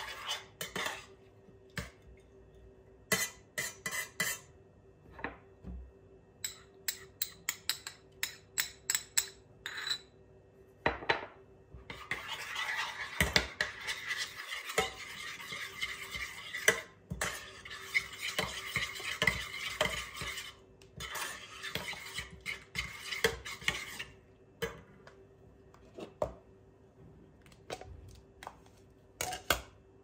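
Metal spoon stirring oat porridge in a stainless steel saucepan, clinking and scraping against the pot. First comes a run of quick separate clinks and taps, then about twelve seconds of continuous scraping stirring starting about twelve seconds in, then a few scattered taps.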